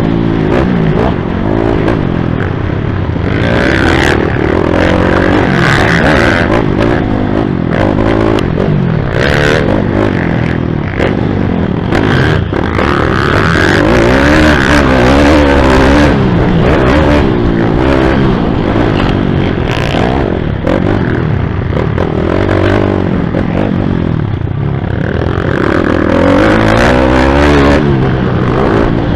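YCF pit bike's single-cylinder four-stroke engine being ridden hard, its revs rising and falling again and again through throttle and gear changes. Short knocks and clatter come from the bike over the bumps.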